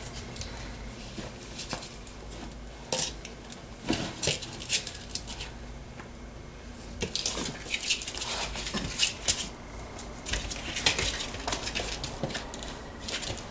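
A ferret scrabbling and shoving a stuffed toy against its igloo: irregular light knocks, clatters and scuffs, coming thicker in the second half.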